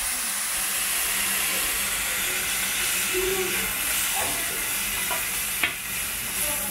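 Food sizzling steadily on a hot teppan griddle, with one sharp tap near the end.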